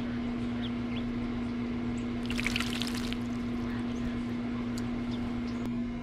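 Eastern bluebird splashing in a birdbath: one short burst of wing-flapping in the water a little over two seconds in, with a few faint drips. A steady low hum runs underneath.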